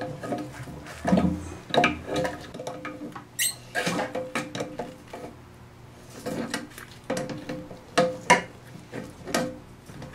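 Adjustable wrench on the plastic nut under a toilet tank, being loosened to free the fill valve: irregular metallic clicks and clinks as the jaws are set and turned, some ringing briefly. A short squeak comes about three and a half seconds in.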